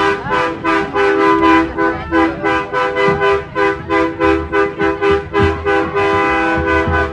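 Several truck horns sounding at once in a long held chord, with a quick regular pulsing of about three or four beats a second running through it.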